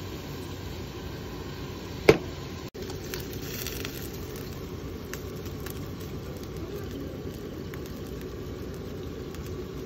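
Steady flame noise from a portable gas burner under a hot sandwich maker, with faint sizzling of pork belly fat. One sharp metal clack about two seconds in as the press is handled.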